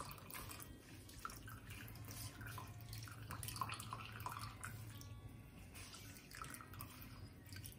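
Faint trickling and dripping of whey as a cheesecloth bundle of fresh paneer is squeezed by hand, the liquid falling through a metal mesh sieve into a steel pot, over a low steady hum.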